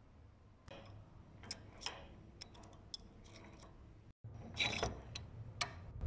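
Faint, sharp clicks and ticks of a cherry being set and adjusted between the metal jaws of a small red vise, scattered a few to the second, with a louder cluster of clicks near the end.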